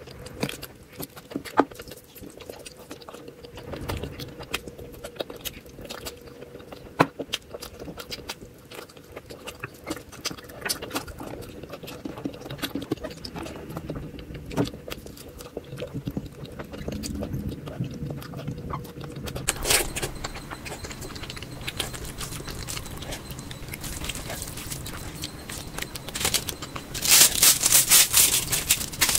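Close-miked eating sounds: wet chewing and mouth clicks with occasional utensil clicks on a plate. About two-thirds of the way through the sound changes, and near the end comes a loud stretch of crackly, crunchy noise.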